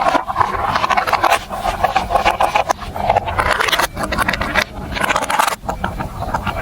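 Marbles rolling and clattering along a plastic building-block marble run track, a dense rattle of small clicks that breaks off briefly twice.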